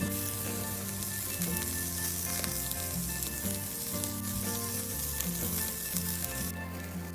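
Background music with low notes changing step by step, over a steady crackling hiss.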